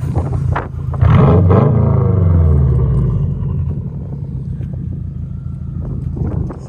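Subaru STI's flat-four engine blipped hard through its exhaust about a second in, the revs falling away over the next two seconds into a steady low rumble.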